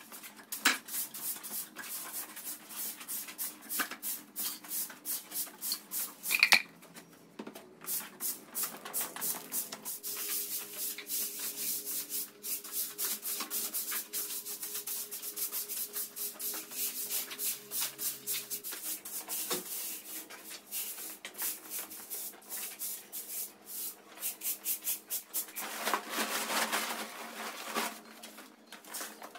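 Rapid rhythmic brushing or scrubbing strokes, about four a second, with one sharper clink about six seconds in.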